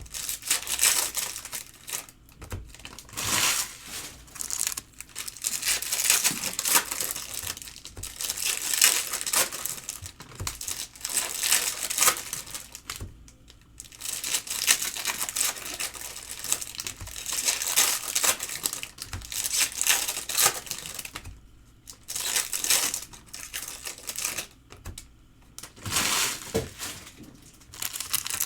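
Trading-card pack wrappers crinkling and tearing open while the cards are handled, in bursts of a few seconds with short quieter pauses.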